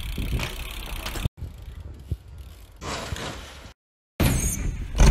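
BMX bike riding on pavement: tyre noise and rattling of the bike, with a couple of light knocks from landings. The sound comes in short spliced clips and cuts out abruptly twice, the second time for about half a second, before a louder rumbling clip near the end.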